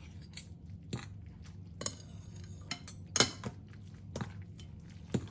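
Metal fork and spoon clinking and scraping against a ceramic bowl while tossing instant noodles: a run of sharp clinks, the loudest about three seconds in.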